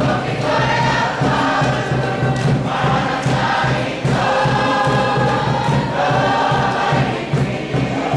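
A large group of Cook Islands performers singing together in chorus, in phrases that swell and break every second or two.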